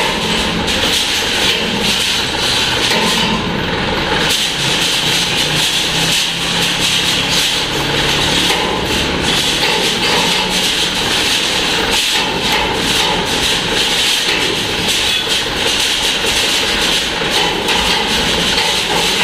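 Diesel dump truck engine running at idle, steady and loud, with irregular clicks and knocks over it.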